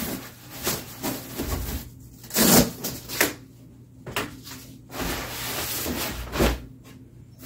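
Nylon webbing strap being worked loose and pulled off a rolled self-inflating sleeping pad, heard as a series of separate brief rustles and scrapes, the loudest about two and a half seconds in. Near the end there is a rustle of nylon fabric as the stuff sack is swept aside.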